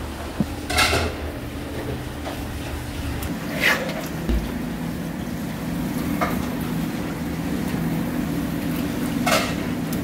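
Kitchen work: four short, sharp clinks of dishes or utensils, spaced a few seconds apart, over a steady mechanical hum.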